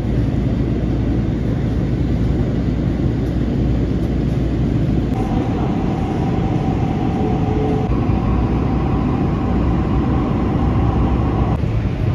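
Interior of a metro light-rail train in motion: a steady rumble of the car running on the rails. A steady whine joins about five seconds in and stops shortly before the end.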